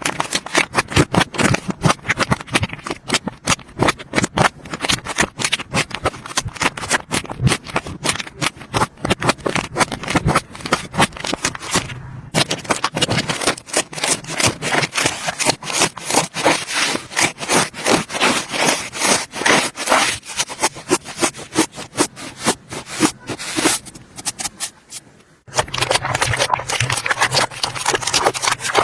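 Slime being squeezed and worked by hand: a dense, rapid run of small sticky clicks and pops, with a brief break near the end before it resumes.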